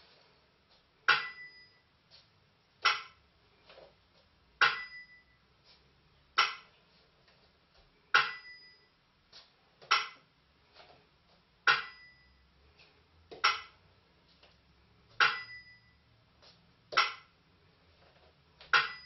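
Burmese si and wa keeping the dance beat: a small bell struck with a brief ringing tone, alternating with a dry bamboo clapper. There is one stroke about every 1.75 s, so the bell sounds about every 3.5 s, with fainter ticks between the strokes.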